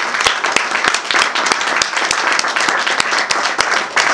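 A small audience applauding, many quick hand claps merging into a steady patter with single claps standing out.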